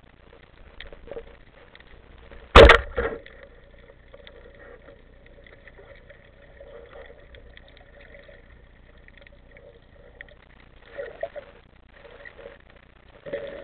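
Rubber-band speargun fired underwater: one loud, sharp snap about two and a half seconds in, with a second, smaller knock just after, the shot that spears a mullet. Faint scattered knocks and rustles follow.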